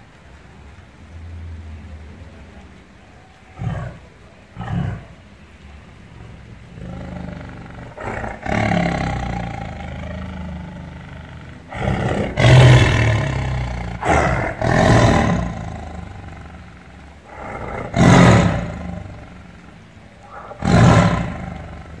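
Tiger growling and roaring: a low rumble at first, two short snarls around 4 s, a long growl from about 8 s, then four loud roars between about 12 and 21 s.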